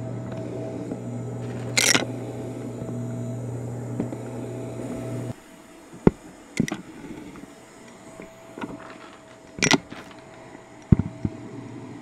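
Stick vacuum running with a steady motor hum as it is pushed over carpet, then switched off abruptly about five seconds in. A few sharp clicks and knocks follow as parts are handled and set down.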